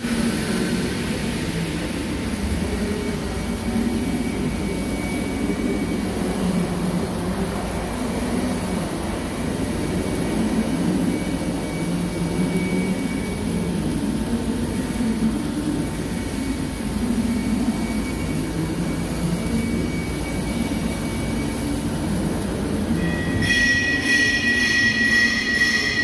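Steady welding-arc noise on steel pipe. A high whine with several evenly spaced tones sets in near the end.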